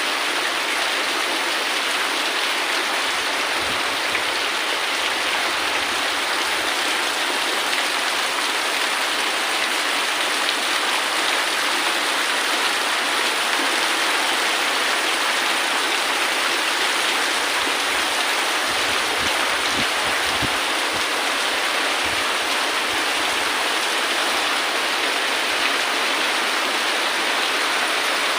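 Steady, heavy rain falling, an even unbroken hiss.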